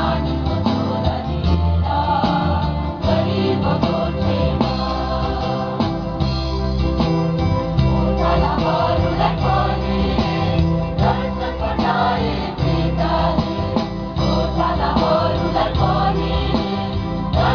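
A large mixed choir singing a Nepali Christian Christmas hymn, accompanied by an electronic keyboard.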